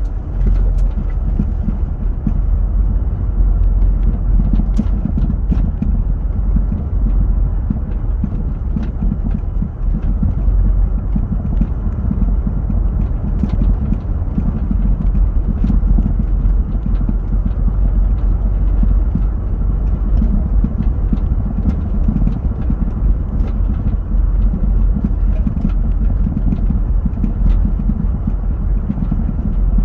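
Land Rover Freelander 2 on the move: a steady heavy road rumble with sharp knocks every few seconds at irregular intervals, a knock from the rear suspension.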